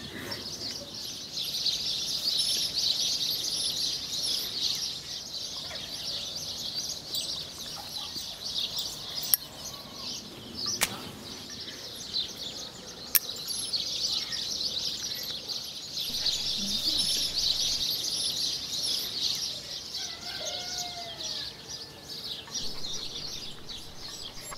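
Countryside ambience: a dense, steady high-pitched chorus of chirring, with hens clucking near the end. Three sharp clicks come around the middle.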